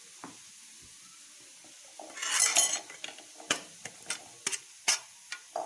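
Kitchen utensils and dishes handled: a short scraping rustle about two seconds in, then a series of sharp clinks and taps of metal cutlery against a dish.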